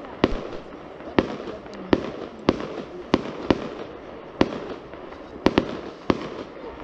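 Fireworks display: aerial shells bursting in a run of sharp bangs, about ten of them, one every half second to a second.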